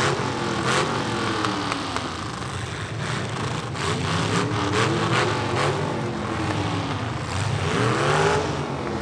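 Several demolition-derby pickup trucks' engines revving up and down, with repeated sharp knocks and bangs of metal among them. A strong rev rises and falls near the end.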